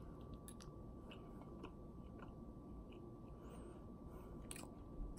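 Faint chewing of a mouthful of baked carp fillet, with a few soft mouth clicks scattered through it.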